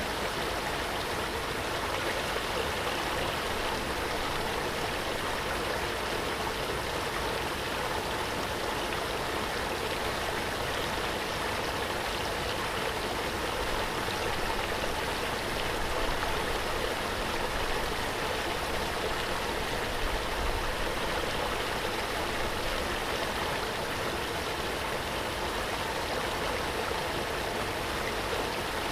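Waterfall: water falling and rushing in a steady, even roar without breaks.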